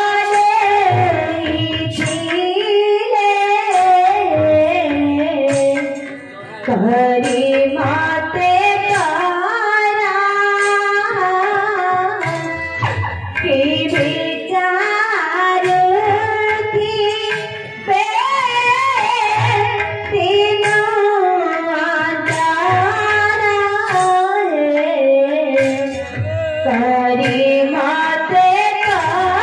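Indian-style song: a singing voice with melodic accompaniment over a steady rhythm of drum strokes, with a brief drop in level about six seconds in.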